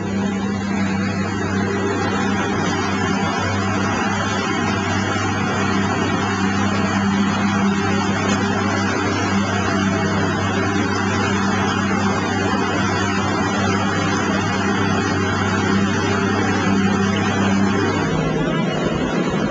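Motorboat engine running steadily under way, its low hum under a steady rushing noise. The engine hum drops away near the end.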